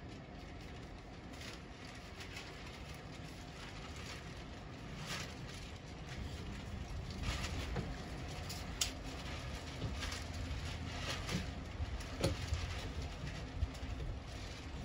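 Low steady outdoor background rumble with a few scattered light clicks and taps from utensils and food containers being handled on a table.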